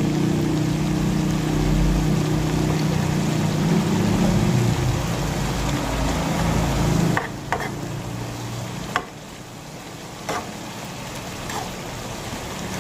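Stir-frying in a wok: green beans and chicken sizzling while a metal spatula scrapes and turns them. About seven seconds in it turns quieter, with a few sharp taps of the spatula against the pan.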